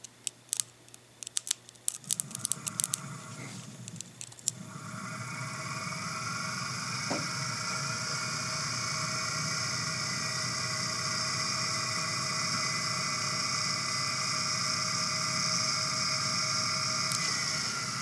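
The universal AC/DC motor of a 1970s Hoover Constellation vacuum cleaner, run from a 9-volt battery. For the first few seconds the plug's prongs click and crackle against the battery terminals. Then, about four and a half seconds in, the motor spins up, rising slightly in pitch to a steady whir, with a single click near the end.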